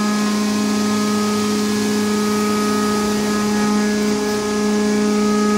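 Steady hum of a ground support cart running, several fixed pitches held without change, supplying power to a jacked-up F-4 Phantom for a flight-control operating demonstration.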